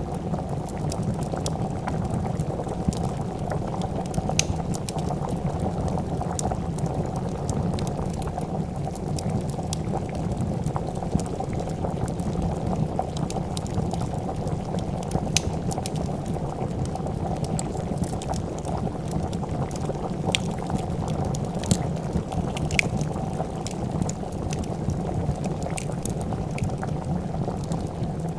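A pot of soup boiling with a steady, dense bubbling. Scattered sharp crackles from a wood fire sound every few seconds over it.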